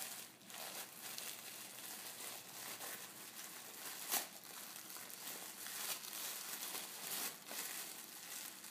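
Gift-wrapping paper crinkling and tearing faintly as a child's fingers pick at a wrapped present, with a sharp click about four seconds in.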